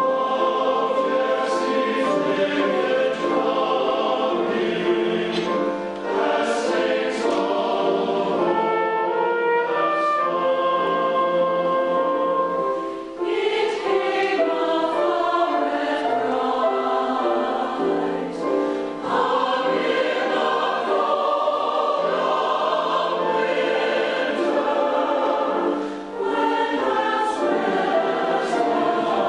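Large mixed choir of men and women singing together, with brief dips between phrases about 13 and 26 seconds in.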